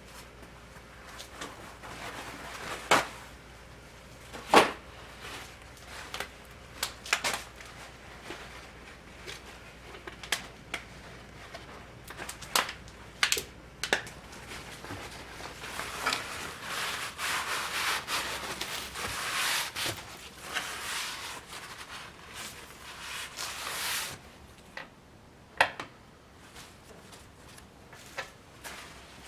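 A soldering iron's tip and barrel being scrubbed by hand with an abrasive, with a rough rubbing sound for several seconds in the middle. Scattered knocks and clicks from the metal parts being handled come before and after it.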